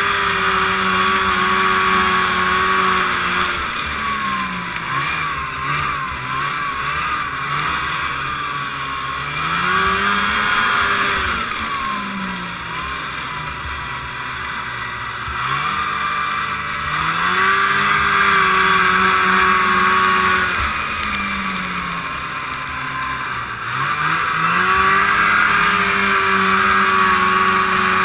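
1978 Ski-Doo Everest 440 snowmobile's two-stroke engine under way, revving up and easing off about four times as the throttle is opened and closed. The owner says it is running poorly and keeps fouling spark plugs.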